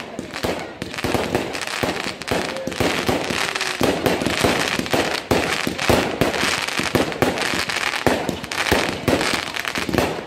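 Aerial fireworks going off in a continuous barrage, several bangs and crackles a second.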